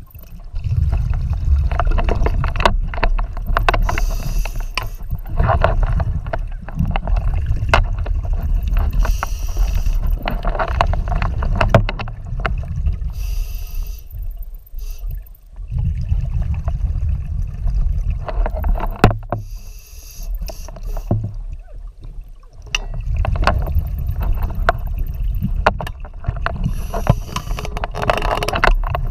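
Scuba diver breathing underwater as heard through a camera housing: spells of rumbling exhaled bubbles every few seconds, with short hisses between them.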